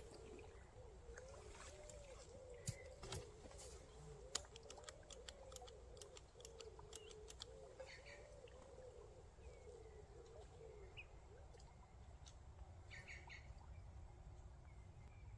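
Near silence with faint bird calls throughout and a scatter of light clicks in the first half.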